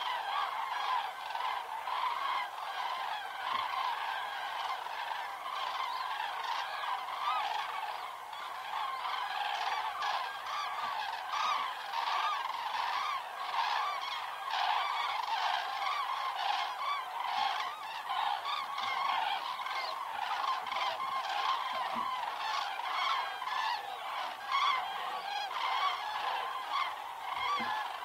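Common cranes calling in flight, many loud trumpeting calls from passing flocks overlapping into a continuous chorus.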